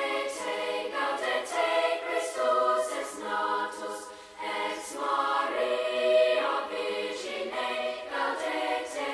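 Background music of a choir singing, the voices moving from chord to chord every second or so.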